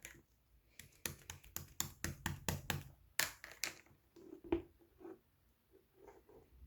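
Slime being pressed and poked by hand: a quick run of sharp sticky clicks and pops, then softer, duller squishes in the second half.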